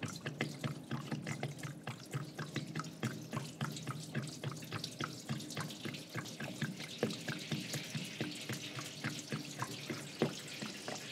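Liquid degreaser pouring from a 5-gallon plastic jug into a parts washer's metal tank, splashing onto the tray and into the pooled liquid with quick, irregular gurgles throughout.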